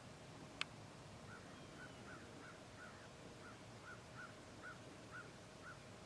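A bird calling faintly, a run of short, evenly spaced notes about two a second, after a single sharp click about half a second in.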